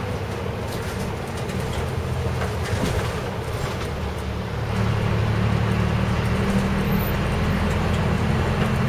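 City bus engine running as the bus drives along, heard from inside the cabin; the engine note gets louder about halfway through as it pulls harder.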